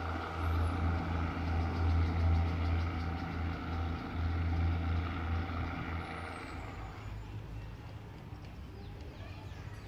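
Diesel train engine running with a steady low drone, which fades away about six to seven seconds in.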